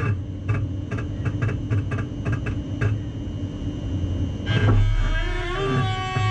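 A Siemens Desiro Classic electric multiple unit's drive and wheel on the rail during wheelslip on rusty, wet rails. Steady electric whining tones run with a string of short clicks for the first few seconds. About four and a half seconds in there is a burst of noise, and then the whining tones glide upward and settle at a steady pitch.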